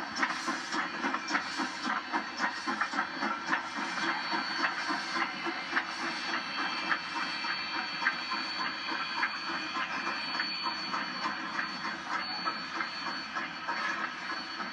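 Denver & Rio Grande Western K-27 Mikado steam locomotive No. 463 running, with a quick rhythmic chuff and clank over a steady steam hiss, heard through a television's speaker.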